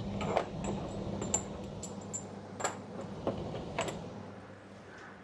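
Small metal hardware clinking as printer frame brackets and screws are handled: about half a dozen separate light clicks spread over a few seconds, over a faint steady hum.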